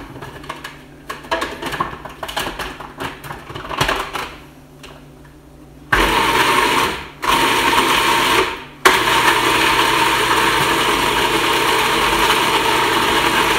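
Electric food processor blending a herb, garlic and olive-oil marinade paste. First come light clicks and knocks as the machine is handled. About six seconds in the motor starts abruptly, is pulsed off and on twice, then runs steadily and loud.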